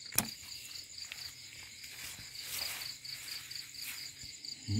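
Night insects trilling steadily in a high, rapidly pulsing chirr on two pitches. A single sharp knock comes just after the start.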